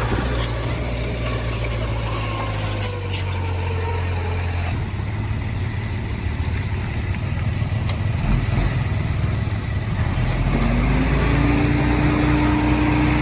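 Diesel engine of heavy earthmoving machinery running steadily. Its note changes about five seconds in, a few light rattles sound in the first three seconds, and a whine rises and then holds near the end.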